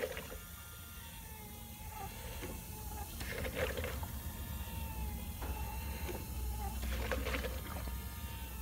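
Home-built 3D-printed emergency ventilator running: its small geared 12 V DC motor whines steadily as the 3D-printed cams pinch the silicone tubes, with a short noisy burst of air about every three and a half seconds, one per breath cycle.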